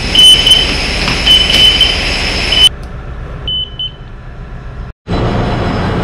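Steady machinery drone in a ship's engine control room, with short high electronic beeps from the control console, several in the first few seconds and two more in a quieter stretch. After a brief dropout, the louder steady drone of running engine-room machinery with a low hum.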